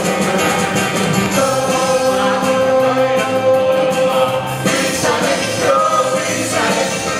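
Music: several voices singing a rock-and-roll show tune together over instrumental accompaniment.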